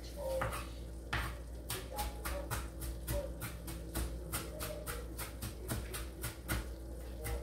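Kitchen knife chopping onion on a cutting board, a steady run of quick chops about three or four a second.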